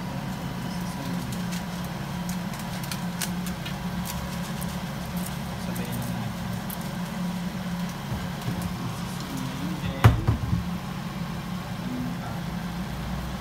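Steady low hum in a kitchen where a wok is on the stove, with a few light ticks in the first several seconds and a single sharp knock about ten seconds in.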